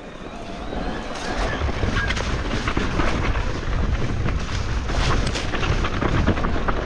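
Wind buffeting the microphone over the rattle and crunch of a mountain bike rolling across loose stones, with many small clicks and knocks from the tyres and frame.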